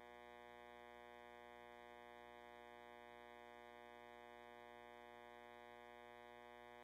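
Near silence with a faint, steady electronic hum made of many held tones.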